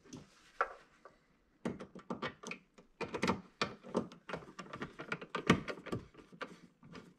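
Hand screwdriver turning screws into the metal stand mounting plate of an LG CX OLED TV: a quick, irregular run of small clicks and scrapes, starting about one and a half seconds in.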